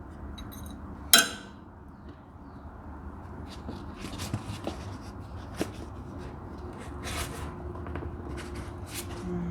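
Small metal parts being handled: one loud ringing metallic clink about a second in, then scattered light clicks and scrapes.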